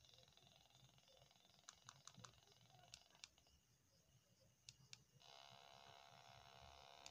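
Faint hiss from a mobile phone's FM radio tuned between stations, with about seven short clicks as its keys are pressed to step the frequency. About five seconds in, a steady buzz comes in and holds.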